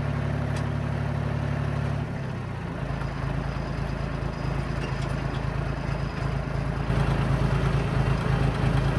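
John Deere crawler dozer's diesel engine running. Its note changes about two seconds in, and it grows louder from about seven seconds on.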